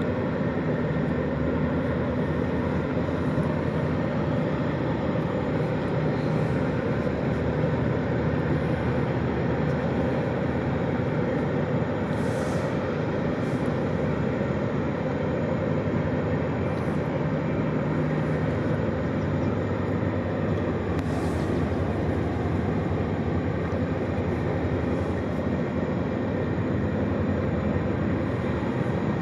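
Tugboat's diesel engines running steadily under load as it pushes barges: a low, even drone over a wash of noise.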